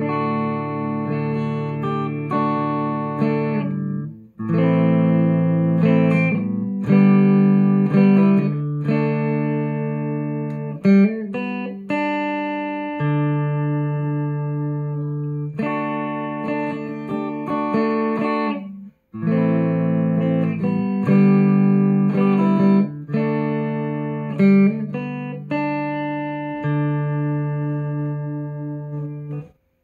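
Clean electric guitar chords and arpeggios from a Telecaster-style guitar, played through a Sonicake Sonic IR loader pedal loaded with a Celestion Greenback speaker impulse response captured with a different microphone setup. The chords ring in several phrases with brief breaks.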